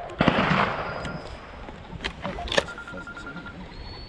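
Shotgun shots: one loud report about a quarter second in that dies away over half a second, then two fainter, sharper cracks around two seconds in, half a second apart.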